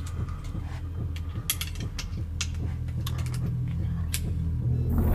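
Revolver being handled: a scattered series of sharp metallic clicks from its cylinder and action, over a low steady drone that grows louder near the end.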